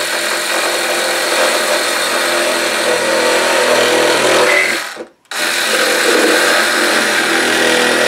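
Milwaukee Hackzall cordless one-handed reciprocating saw cutting through PVC pipe, running steadily. It stops for a moment about five seconds in, then starts cutting again.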